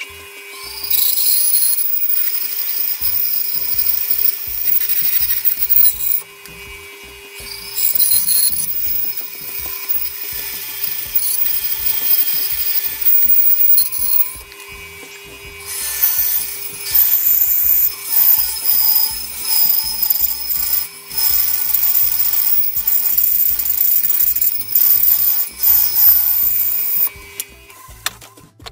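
Bandsaw running and cutting through a small block of hardwood, the cutting noise swelling and fading with each pass, then several short cuts in quick succession in the second half. The saw stops shortly before the end.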